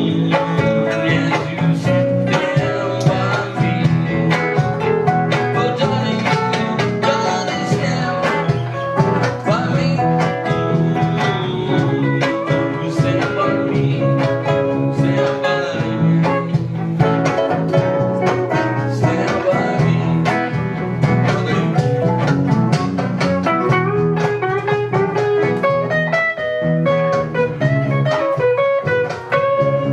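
A small live band of acoustic guitars, an electric guitar and a bass guitar playing an instrumental number together, with plucked notes and strummed chords.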